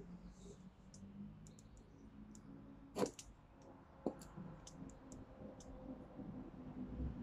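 A scatter of short, high bird chirps and two sharp clicks over a faint low hum. The louder click comes about three seconds in and a second one about a second later.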